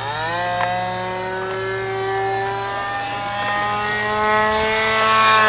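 Radio-controlled model Cessna's electric motor and propeller whining. The pitch rises sharply at the start as the motor speeds up, then holds high with slow shifts, getting louder near the end.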